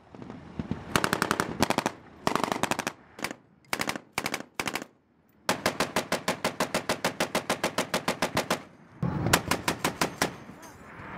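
Machine guns firing on automatic in bursts of rapid, evenly spaced shots: several short bursts, then one long burst of about three seconds, then another short burst near the end.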